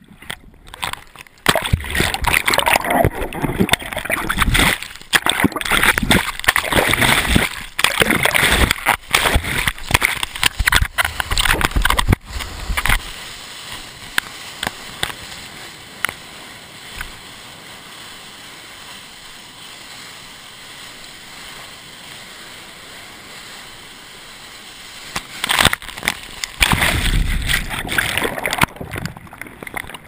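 Seawater splashing and churning against a wrist-worn GoPro's waterproof housing in the surf. It is loud and choppy at first, settles into a quieter steady hiss about halfway through, then turns loud and choppy again near the end.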